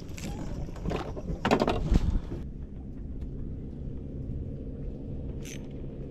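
Clattering knocks and handling noise as a landing net is moved and set down against the side of a small boat, ending in a heavier thump about two seconds in. A low steady engine hum runs underneath throughout, with a brief high click near the end.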